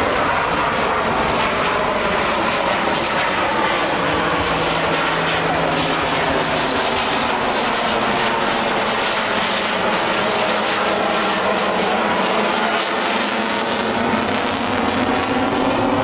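An F-16 fighter jet and an AH-64 Apache attack helicopter flying together overhead: loud, steady engine noise that shifts slowly in pitch as they pass.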